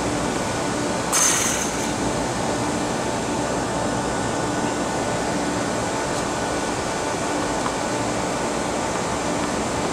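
Steady outdoor background noise with no distinct source, and a brief hissing burst about a second in.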